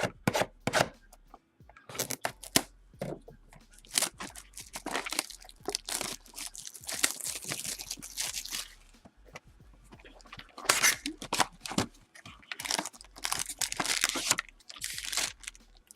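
Plastic wrapping being torn and crinkled off a sealed box of trading cards, in a run of short, irregular rips and crackles.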